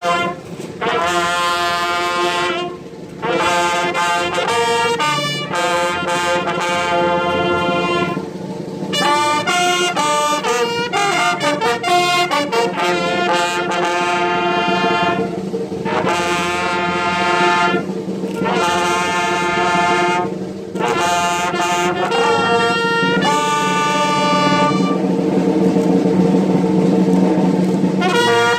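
Brass band playing a slow piece of long held notes in phrases with short breaks between them.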